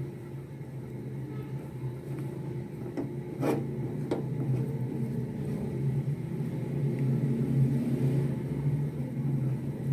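A silicone spatula stirring and scraping ginger-garlic paste in a nonstick frying pan, over a steady low hum. Two sharp taps of the spatula on the pan a little over a third of the way in.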